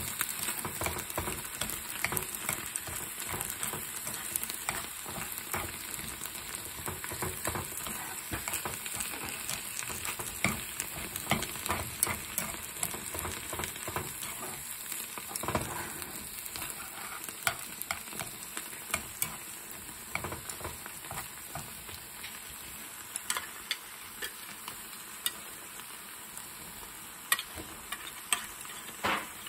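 Canned tuna with diced bell peppers and onion frying and sizzling in a nonstick frying pan while being stirred with tongs, with many small scattered clicks. The sizzle eases off gradually, and a few sharper clicks stand out near the end.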